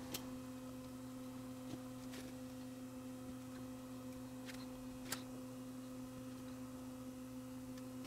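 Faint steady electrical mains hum, with four light ticks spread through it as solder joints are made on a circuit board.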